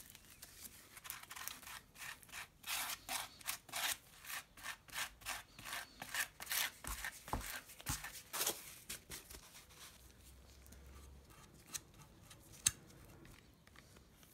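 A flat spatula stirring and spreading a paste of sawdust and wood glue on a piece of cardboard, in quick scraping strokes about two or three a second that stop about nine seconds in. Fainter scraping and one sharp click follow near the end.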